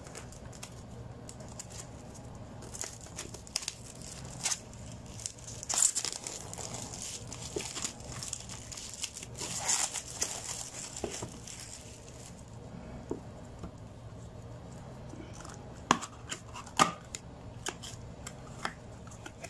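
Clear plastic shrink-wrap on a small cardboard product box being torn and peeled off, with irregular crinkling and tearing. Near the end there are a few sharp clicks and knocks as the inner cardboard box is opened.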